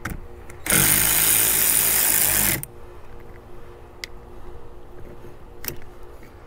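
Power tool running in one burst of about two seconds, starting and stopping suddenly, as it works a nut on the truck's battery junction box. A few light metal clicks come before and after it.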